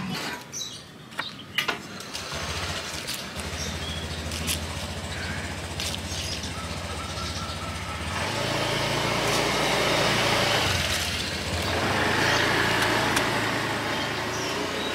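Street traffic: a vehicle engine running steadily nearby, with the noise of passing vehicles swelling twice in the second half. A few sharp knocks sound in the first couple of seconds.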